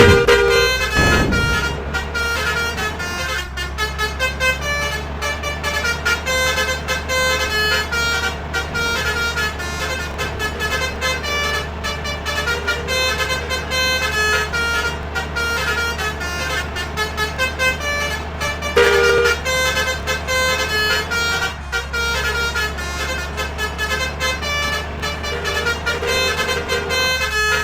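Indonesian buses' 'telolet' musical air horns (basuri trumpet horns) playing quick, changing melodic toots over the steady hum of running diesel bus engines. A louder, deeper horn blast sounds at the start and again briefly about two-thirds of the way through.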